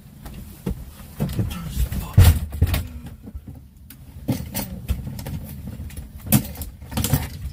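A string of irregular sharp knocks and bangs over a low rumble, the loudest about two seconds in and again near the end.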